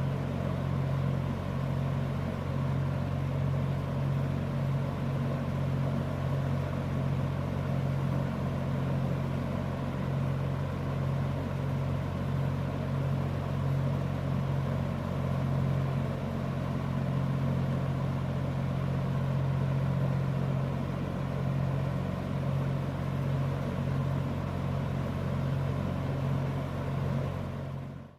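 Late-1950s Emerson 746310-AR metal box fan running steadily: a low motor hum under an even rush of air from the blades.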